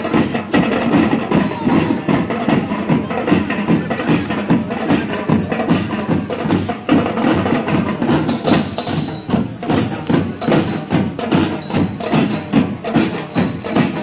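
Drum and lyre band playing: drums and percussion beat a steady, driving rhythm while bell lyres ring high notes over it, the bell notes clearer in the second half.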